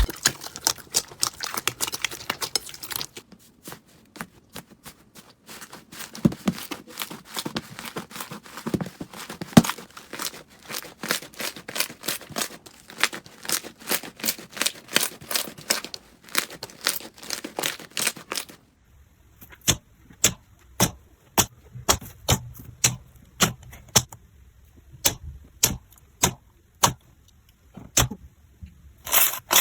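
Slime being pressed and worked by hand: a dense run of crackling clicks, then, after a short break about two-thirds in, slower separate pops about one and a half a second.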